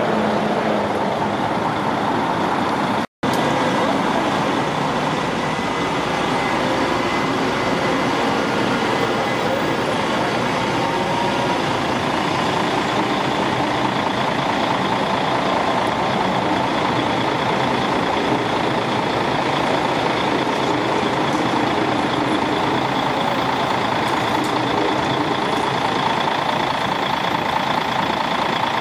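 A vehicle running steadily with a dense, even rumble and hiss, broken by a split-second dropout about three seconds in.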